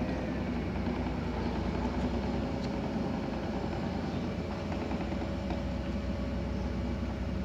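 Aircraft tug's engine running steadily at low speed while towing a jet trainer on a tow bar, with a faint steady whine over the engine's low drone.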